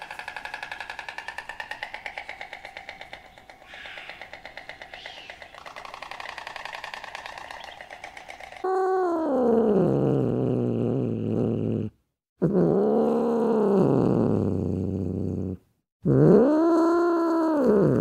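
A rapidly throbbing, buzzy animal call of several tones for the first eight seconds or so. Then three long, loud yowls from an Asian golden cat, each rising and then falling in pitch, with short breaks between them.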